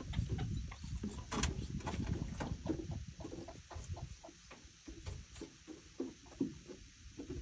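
Peafowl pecking at treats and stepping about: irregular light taps and clicks, several a second, over a low rumble.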